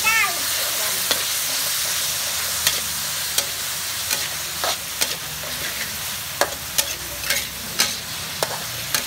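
Beef sizzling in a metal wok while being stir-fried with a metal spatula: a steady hiss of frying, with the spatula scraping and clinking against the pan every second or so, faster in the second half.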